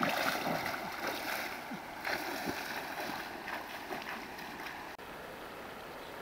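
Water splashing as a man wades and runs through a shallow, rocky river, one surge of splashes after another. About five seconds in it gives way to the steady rush of the stream flowing.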